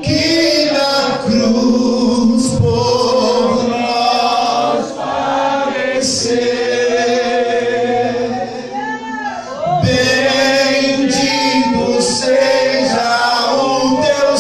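A man singing a hymn into a microphone over the hall's loudspeaker, with other voices singing along.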